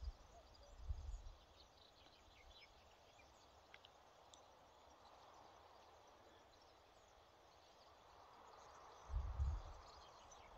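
Near-silent outdoor ambience with a few faint, distant bird chirps, broken by low rumbling bumps on the microphone about a second in and again near the end.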